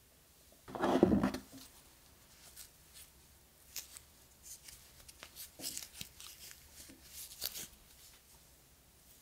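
A dull thump about a second in, then light crinkling and rustling clicks as a coiled USB-C charge cable in its paper wrap band is lifted and handled in knit gloves.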